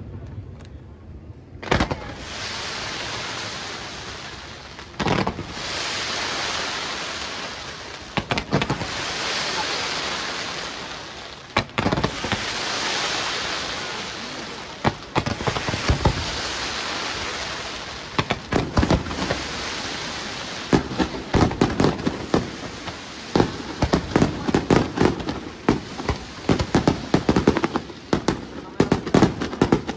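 Aerial fireworks display. Separate bangs, each followed by a long hissing, crackling shower that swells and fades over a few seconds. From about two-thirds in, a dense run of rapid bangs and shell bursts.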